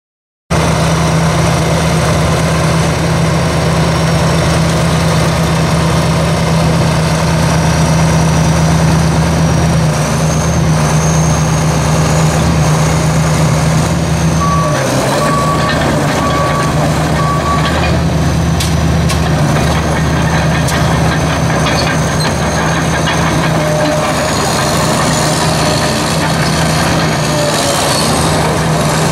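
John Deere 750 crawler dozer's diesel engine running steadily, with a backup alarm beeping four times about halfway through.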